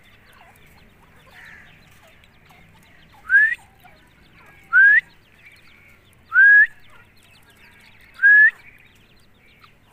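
Grey francolin chicks calling: four loud rising whistled peeps, each about a third of a second long and one and a half to two seconds apart, over faint soft chirping.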